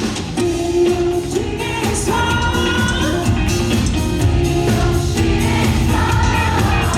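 Pop-rock song played by a band with sung vocals over a steady beat.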